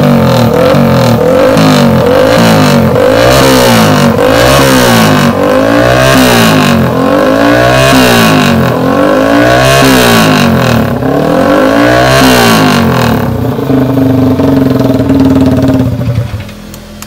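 Yamaha R15 V3's 155 cc single-cylinder engine revved again and again, about once a second, through a modified exhaust. Near the end it holds a steady note for a few seconds, then drops away.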